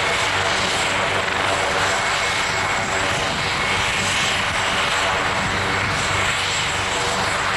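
AgustaWestland AW139 ambulance helicopter running on the ground with its rotors turning: a steady, high turbine whine over rotor and engine noise that holds level throughout.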